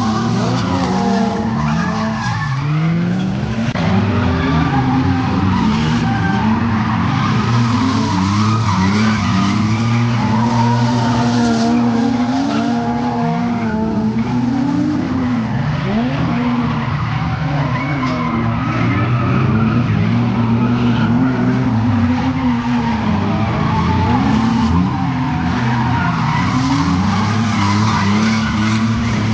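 Several drift cars sliding through a corner together, their engines revving up and down over a constant squeal of spinning, sliding tyres.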